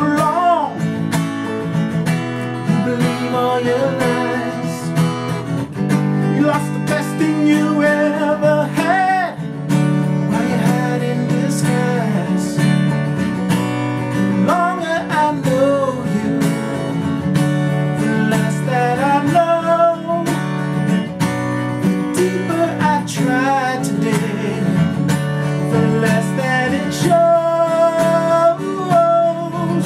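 Strummed Gibson acoustic guitar with a man singing a melody over it.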